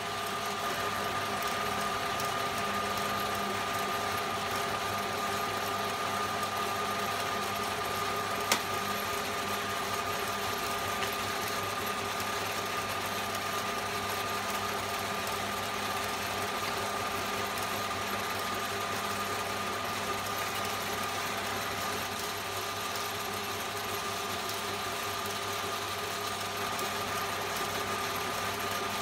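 Old Hahn & Kolb metal lathe running steadily, an even machine hum with a constant high tone. A single sharp click comes about eight and a half seconds in.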